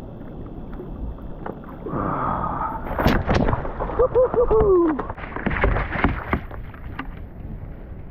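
Knocks, thumps and rattles of a freshly landed snapper and fishing gear being handled on a kayak, busiest in the middle few seconds. About halfway through comes a brief wordless vocal sound from the angler, a few short sounds then a longer falling one.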